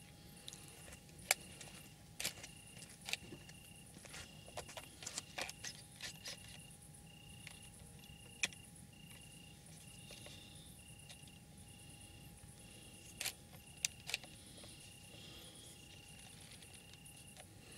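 Crickets chirping steadily at about one chirp a second, with a higher insect trill pulsing above them. Scattered sharp clicks and knocks close to the microphone stand out, the loudest about a second in, once near eight seconds and in a cluster around thirteen to fourteen seconds.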